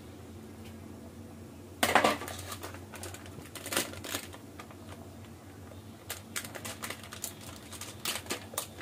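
A ladle clattering against a cooking pot: one loud clatter about two seconds in, a couple more knocks soon after, then scattered light clicks.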